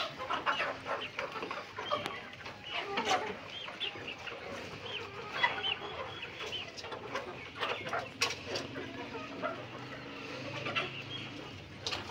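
A flock of chickens clucking and calling, many short overlapping calls at once, with scattered sharp clicks throughout.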